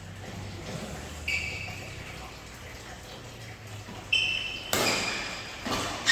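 Badminton play in an indoor hall: shoes squeaking on the court floor about a second in and again near four seconds, then sharp racket hits on the shuttlecock near the end, over a low steady hum.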